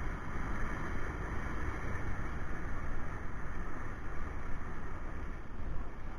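Street motorcycle running steadily as it rides along, with a low rumble of wind on the mounted camera's microphone.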